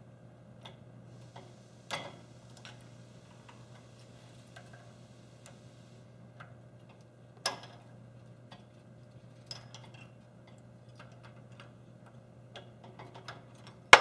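Scattered metal clicks and knocks from a drill press chuck being loosened with its chuck key to take out the bit, with two sharper knocks about two seconds in and about seven and a half seconds in, over a steady low hum.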